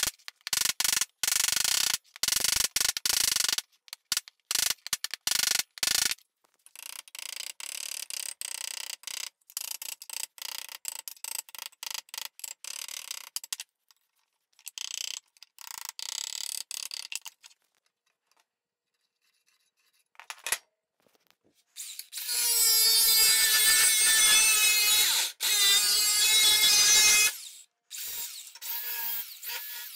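Metalworking sounds: a hammer rapping a steel strip over a wooden forming block for several seconds, then a run of rhythmic rasping strokes on metal, then an angle grinder running for about five seconds near the end.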